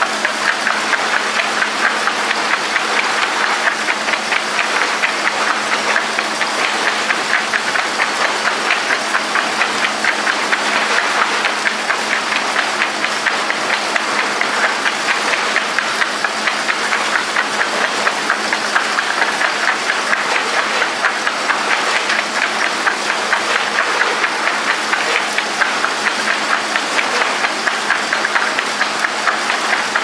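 Automatic sawmill board line running steadily: conveyor rollers and saw heads make a continuous mechanical clatter with a rapid, regular pulsing over a steady hum.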